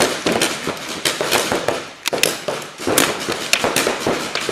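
Paintball markers firing during play: a rapid, irregular run of sharp pops, several shots a second.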